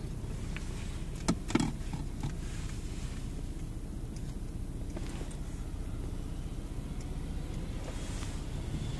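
Steady low rumble of a car's engine and tyres heard from inside the cabin while driving on city streets, with two sharp knocks about a second and a half in.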